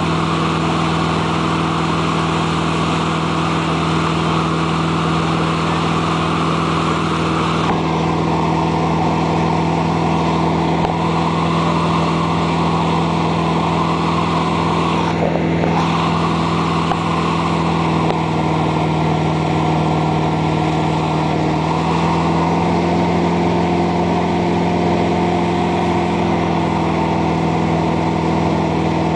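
Motorboat engine running steadily under way, with the rush of churning wake water. The engine note steps up slightly about three-quarters of the way through.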